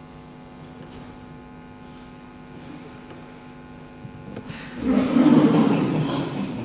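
Steady electrical mains hum, then a louder rough noise of about two seconds near the end.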